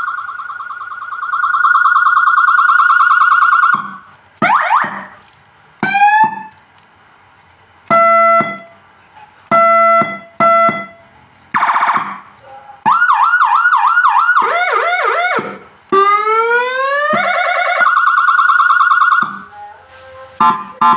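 Whelen 295R electronic siren tones from an SA5200 siren module, switched through several patterns in turn. First comes a held pulsing tone, then short rising whoops and a run of short beeps. A fast up-and-down yelp and a long rising wail follow, with each pattern stopping abruptly.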